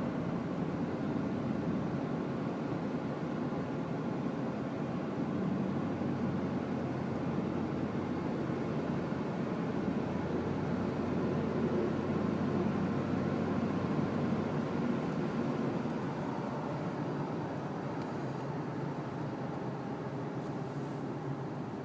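2007 Dodge Dakota pickup running, a steady rumble of vehicle noise that swells a little in the middle and eases off near the end.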